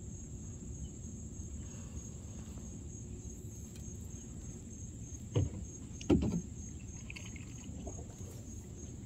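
Insects droning steadily at a high pitch over a low, steady rumble, with two sharp knocks less than a second apart a little past the middle.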